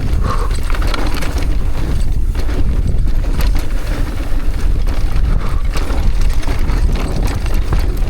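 Mountain bike descending a dry, loose, rough trail at speed: wind buffeting the microphone over tyres crunching on dirt, with many short rattles and knocks from the bike over rough ground.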